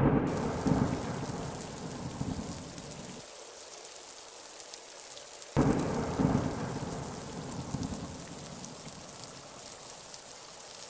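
Thunderstorm: steady rain hiss with two rolls of thunder. The first rumble fades out after about three seconds; the second breaks in suddenly just past halfway and dies away slowly under the rain.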